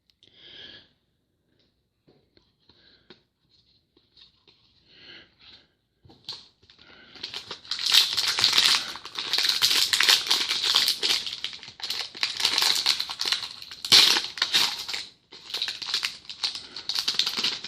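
A few faint light clicks and rustles, then, from about seven seconds in, a trading-card pack wrapper crinkling and tearing as it is opened.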